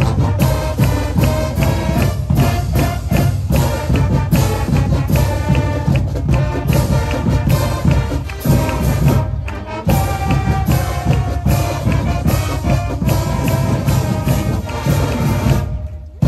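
High school marching band playing its fight song: a brass melody over a steady, driving drumline beat. The band drops out briefly twice, once past the middle and once near the end.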